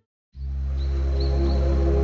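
Ambient background music starting after a moment of silence: steady held tones over a deep sustained drone, with faint short high chirps repeating above it.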